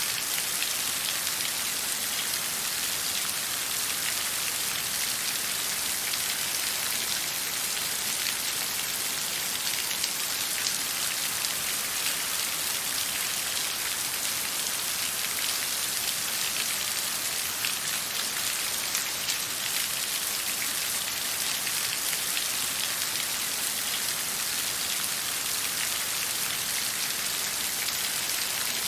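Steady water sound: a dense, even hiss of falling or flowing water, speckled with many small ticks of drops, without a break or change.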